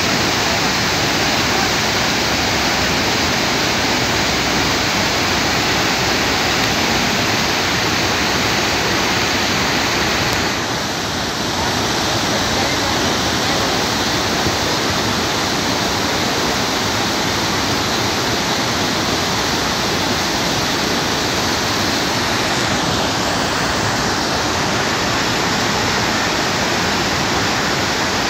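Flooded mountain river rushing and churning over boulders: a loud, steady roar of fast floodwater, with a brief slight dip about ten seconds in.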